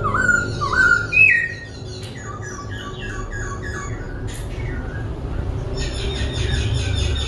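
Caged laughingthrush singing and switching voices. A run of quick rising whistled notes in the first second and a half gives way to faster chattering and trilled phrases, over a low steady hum.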